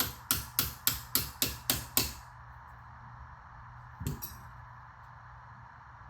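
A hammer tapping on a brake caliper: a quick, even run of about eight sharp metal knocks in the first two seconds, then a single knock about four seconds in.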